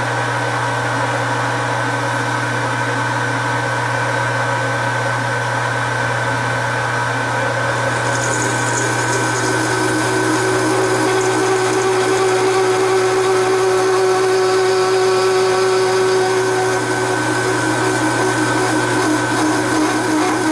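Metal lathe running under a cut, with a steady motor hum and a high steady whine. About eight seconds in the cut grows louder and a ringing tone comes in for several seconds: the tool chattering, though not badly.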